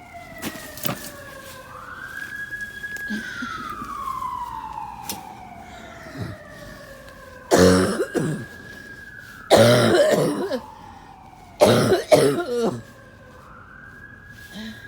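A person coughing in three loud bouts, about seven and a half, nine and a half and twelve seconds in, the later ones several coughs each. Behind it an emergency-vehicle siren wails, slowly rising and falling.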